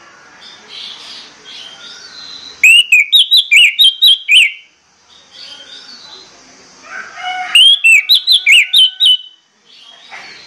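Orange-headed thrush singing: two loud runs of quick, sharp whistled notes, each about a second and a half long, one starting about two and a half seconds in and another near eight seconds, with quieter twittering in between.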